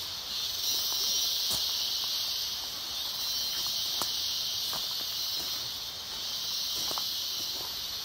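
A steady, high-pitched drone of rainforest insects, with a few faint scattered clicks.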